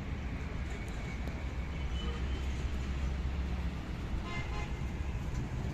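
An engine running with a steady low rumble, and a short vehicle-horn toot about four and a half seconds in.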